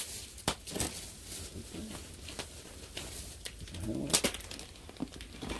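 Wood fire crackling in a tipi stove area, with sporadic sharp snaps, mixed with the rustle and clicks of gear being handled; a short low hum rises about four seconds in.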